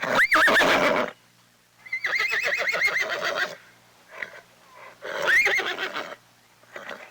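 A horse whinnying three times, each neigh with a wavering, shaking pitch and the middle one the longest, with a few short, faint sounds in the pauses.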